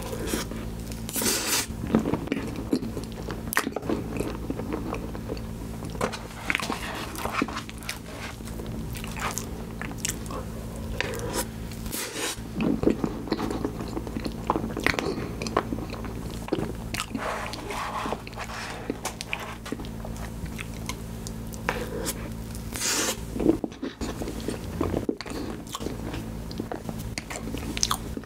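Close-miked chewing and wet mouth sounds of someone eating soft tiramisu from a wooden spoon: a steady string of small smacks and clicks.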